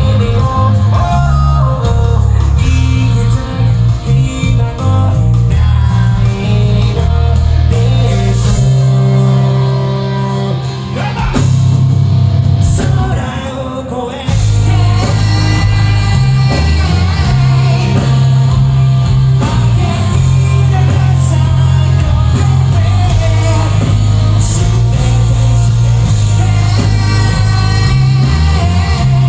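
Live heavy rock band playing, with guitars and drums under a singer. About halfway through the band drops back for a few seconds, then comes crashing back in at full volume.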